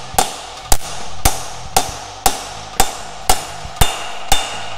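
Hammer striking a socket to drive a pilot bearing into the end of the crankshaft: steady metallic blows about two a second, each with a short ring.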